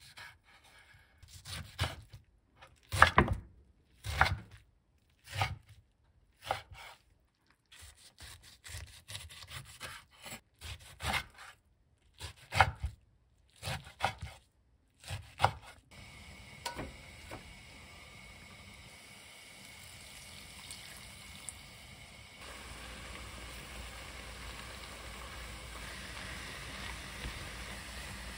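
Chef's knife slicing aged kimchi on a wooden cutting board in a string of uneven strokes. About 16 seconds in, this gives way to a steady sizzling hiss of the kimchi cooking in an enamelled cast-iron pan, which gets louder about six seconds later.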